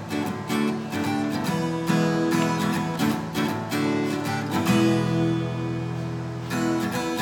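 Acoustic guitar strummed in a rhythmic pattern of quick chord strokes. Past the middle, one chord is left to ring for about two seconds before the strumming starts again near the end.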